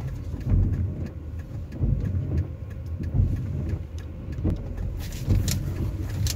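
Car engine running, heard from inside the cabin in the rain as a low rumble. From about five seconds in comes a hiss of tyres on the wet road as a car passes close by.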